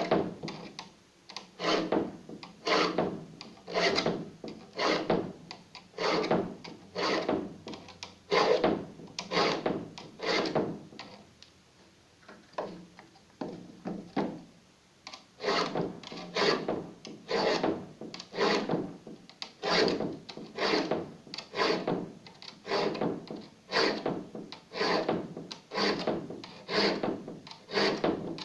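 A cheap metal file rasping across the teeth of a handsaw for wood, sharpening it in a steady run of strokes, a bit more than one a second, softer for a few seconds around the middle.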